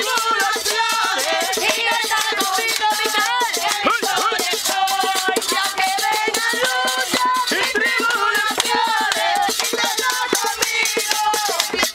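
Live Latin-style percussion: hand-played bongo drums and a metal shaker keeping a fast, continuous rattle, with voices singing over it.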